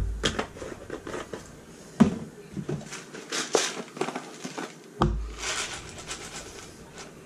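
Kitchen handling noises: scattered clicks and knocks of plastic spice containers being handled and set down at the stove, with brief patches of light rattling and rustle.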